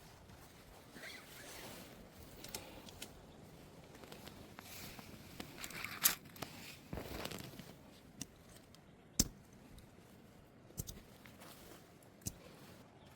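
Camping gear being handled and packed while a tent is taken down: irregular rustling and scraping with scattered sharp clicks and knocks, the loudest about six seconds in.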